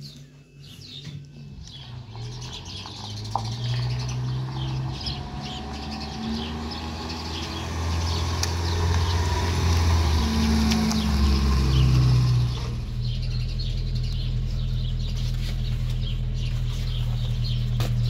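Pickup truck engine running, its pitch shifting for a while and then settling into a steady idle about two-thirds of the way through, with small birds chirping throughout.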